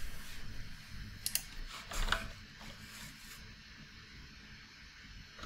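A few light keystrokes on a computer keyboard in the first two seconds, then quiet room tone.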